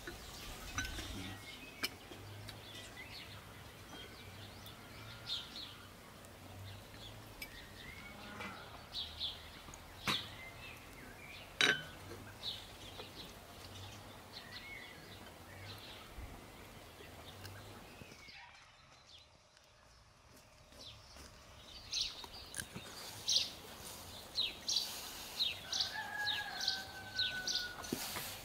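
Village garden ambience: small birds chirping in short high calls, getting busier in the second half, with a drawn-out chicken call near the end. A few sharp clicks stand out, the loudest about twelve seconds in.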